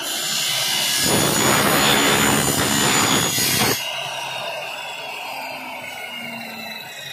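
Electric miter saw cutting through an aluminium window-frame extrusion, a loud harsh metal-cutting noise that stops abruptly a little under four seconds in. The blade is then left spinning down with a falling whine.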